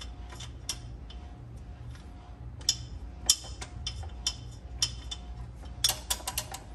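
Sharp metallic clicks, roughly one every half second, quickening into a rapid flurry near the end: a three-cutter tube deburring tool being twisted back and forth inside a copper refrigerant line, scraping it clean. A steady low hum runs underneath.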